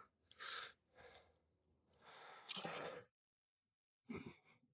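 Faint, breathy exhalations of a man straining as he leans down to the water: four short puffs, the third longer and louder, about two and a half seconds in.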